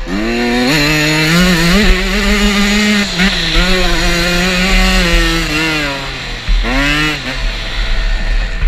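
Dirt bike engine under throttle: the revs climb at the start, hold high and steady, drop briefly about six seconds in, then climb again. Wind rushes over the helmet-mounted microphone underneath.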